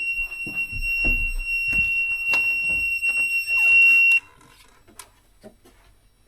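Fire door alarm sounding one continuous high-pitched tone, set off by a fire door being opened; it gets louder, then cuts off suddenly about four seconds in. Knocks and clatter sound under it.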